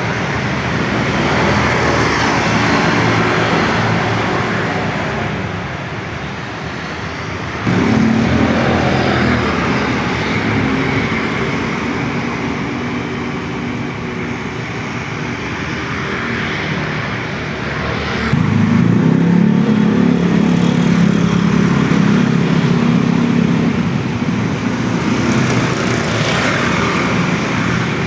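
Road vehicle noise: a steady rush of traffic or tyres, with a low steady drone that starts abruptly about eight seconds in and again, louder, about eighteen seconds in.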